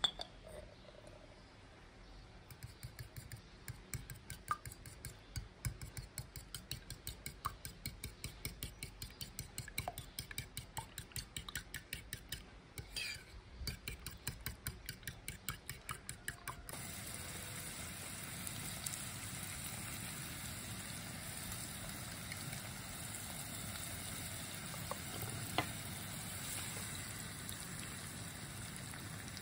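A metal spoon beating eggs in a ceramic bowl, quick clinking strokes about three to four a second. About two-thirds of the way in it switches to the steady sizzle of sliced mushrooms frying in a pan, with the beaten egg poured in near the end.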